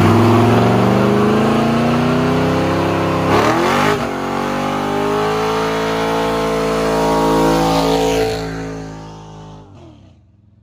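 Chevrolet squarebody pickup's engine revving hard during a burnout, its pitch climbing, with a quick break about three and a half seconds in, then climbing again before fading out near the end.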